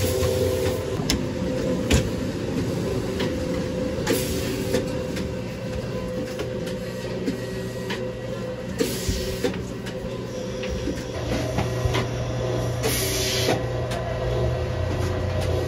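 Working breakfast-shop kitchen: a steady hum of kitchen equipment, with scattered clicks and knocks of utensils and a few short hisses.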